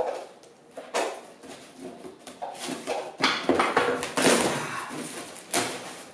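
Packing tape being pulled and ripped off a cardboard box in several noisy tears, longer and louder in the middle.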